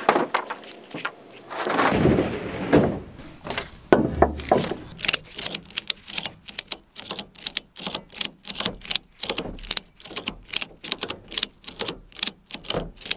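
A plastic kayak scraping as it slides onto a pickup's tailgate, then a heavy thump. After that a ratchet tie-down strap is cranked tight, its metal ratchet clicking about three times a second.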